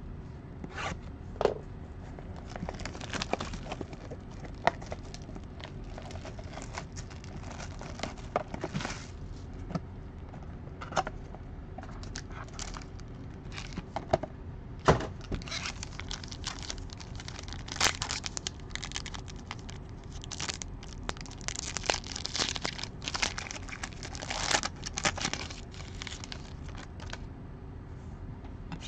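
Trading-card box and foil pack being opened by hand: paper and foil tearing and crinkling, with scrapes and clicks as the cards are handled. The rustling is irregular and busiest in the second half.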